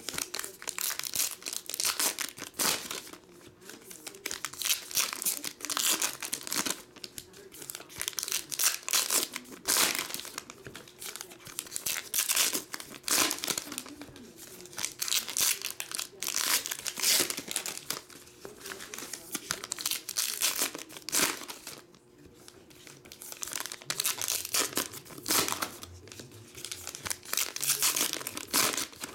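Baseball card-pack wrappers (2019 Topps Archives packs) crinkling and tearing as they are ripped open by hand, in irregular bouts a second or two long.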